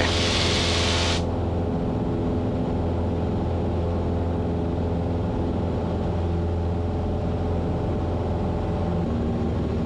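Cessna 150's four-cylinder Continental O-200 engine and propeller droning steadily in flight, heard from inside the cockpit. A hiss sits over it for about the first second and cuts off suddenly.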